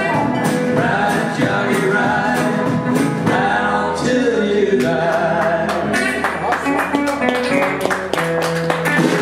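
A blues band playing live: harmonica, guitar, upright double bass and drum kit, with a male voice singing.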